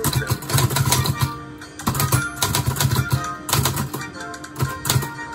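Olivetti Lettera 25 portable typewriter being typed on: a quick, uneven run of key strikes clacking against the platen, over background music.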